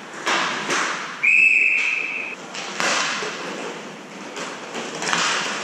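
Referee's whistle blown once, a single steady blast lasting about a second, with sharp knocks and clacks of sticks and puck during inline hockey play before and after it.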